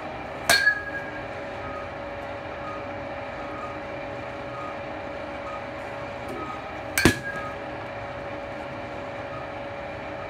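Metal baseball bat hitting pitched balls twice, about six and a half seconds apart, each a sharp ping with a short ring. A steady mechanical hum runs underneath.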